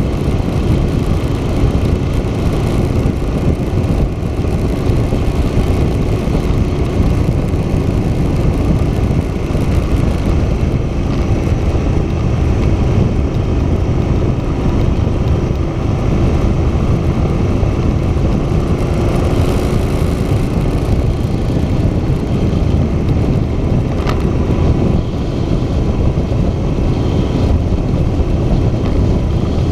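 Moto Guzzi Stelvio's V-twin engine running at steady cruising speed, under a dense rush of wind and road noise.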